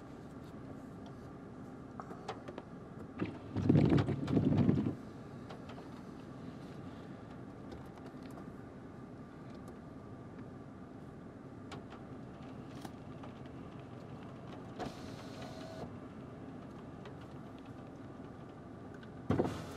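Steady low hum of a car with its engine running, with a loud rough burst of noise lasting about a second around four seconds in, a few light clicks, and a short bump right at the end.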